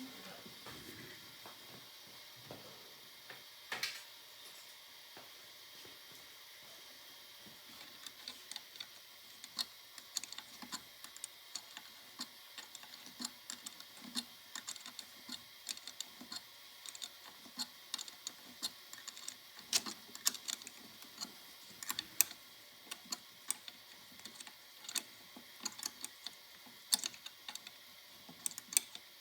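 Light, irregular metal clicks and taps of a hand tool tightening nuts on a Pathé phonograph motor's top end, several a second from about eight seconds in.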